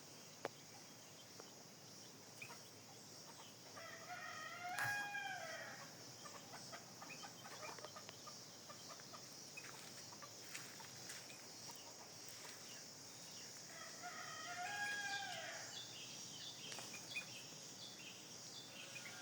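A rooster crowing twice, about ten seconds apart, each crow a single rising-then-falling call, over a steady high hiss.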